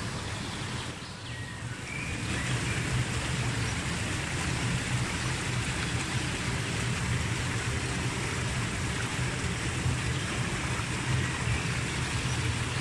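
Shallow rocky stream rushing over boulders and small cascades: a steady rush of water that grows louder about two seconds in.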